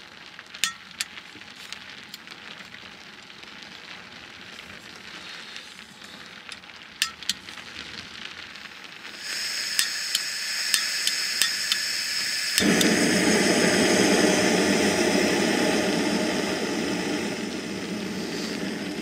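Jetboil canister stove being lit: sharp igniter clicks, then gas hissing from about nine seconds in with more clicks, until the burner catches a few seconds later and burns with a steady, louder rush.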